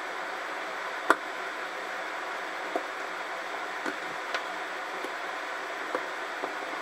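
Small sharp clicks and taps of steel tweezers and small metal parts against a model locomotive's metal frame, about six in all, the loudest about a second in, over a steady background hiss.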